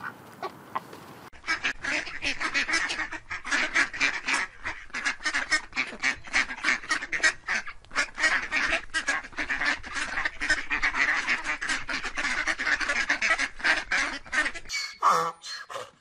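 A flock of mallard ducks quacking all at once, a rapid, continuous chatter of overlapping calls that starts about a second in and stops shortly before the end.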